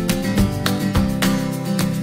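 Background music: acoustic guitar strumming in a steady rhythm, about three strokes a second.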